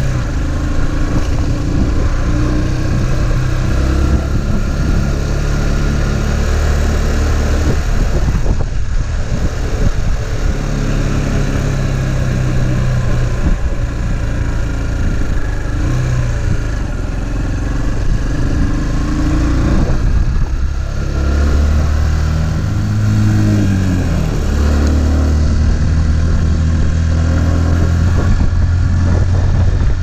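Motorcycle engine running while riding, its pitch rising and falling with changes in speed, over a steady rushing noise.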